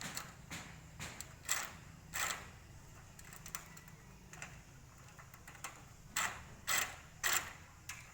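A series of irregular clicks and knocks, like objects being handled or clattering, with the loudest knocks about a second and a half in, a little after two seconds, and three more near the end.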